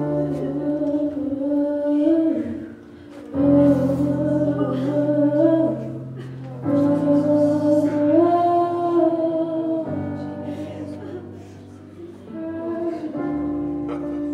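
Worship singing: voices hold long, gliding notes in phrases of about three seconds over sustained low accompaniment whose notes change with each phrase.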